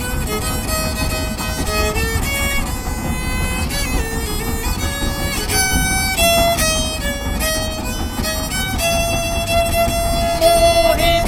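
Violin music: a melody of held and changing notes, over a steady low rumble.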